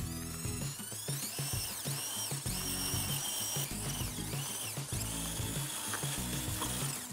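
Electric motor and gears of a radio-controlled Bruder Deutz toy tractor whining, rising and falling in pitch from about a second in as its wheels spin in loose gravel: the tractor is stuck. Background music with a steady beat plays underneath.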